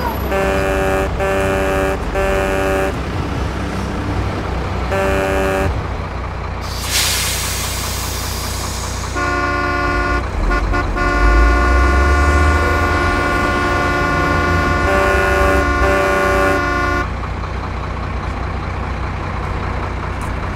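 Truck horn and engine sound effects: three quick toots of a multi-tone truck horn, a fourth a few seconds later, a hiss like an air brake releasing, then one long horn blast lasting several seconds, all over a steady low diesel engine rumble.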